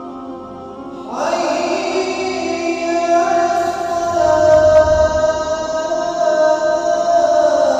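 A muezzin's voice chanting the azan, the Islamic call to prayer. A long, ornamented phrase enters about a second in and holds drawn-out notes that bend in pitch, sinking lower near the end.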